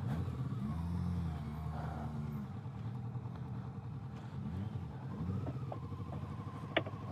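Motorcycle engine running on the move, its pitch rising and falling as the rider changes speed, with a single sharp click near the end.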